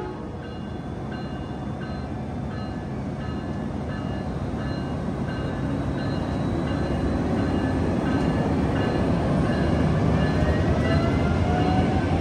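Amtrak Capitol Corridor passenger train pulling out of the station and picking up speed past the platform, led by a Siemens Charger diesel locomotive. The rumble of wheels and engine grows steadily louder, and a rising whine joins in over the last few seconds.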